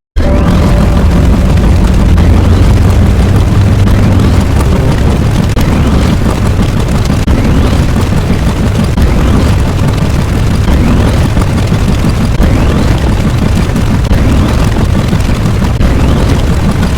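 A loud, continuous sound effect of booming and crackling noise with a heavy low end, starting abruptly after a short gap.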